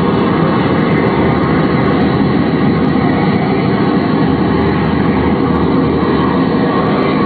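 Live ambient electronic drone: a loud, steady, thick wash of low noise with faint held tones through it.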